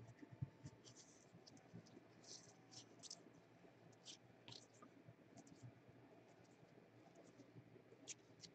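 Faint scratching and light ticks of football trading cards being slid and shuffled by hand, scattered through the quiet, with more of them in the first half.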